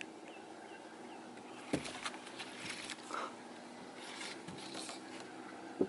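Quiet open-air background on a fishing boat with scattered faint clicks and a few small chirps, and two sharper short knocks, one under two seconds in and one near the end.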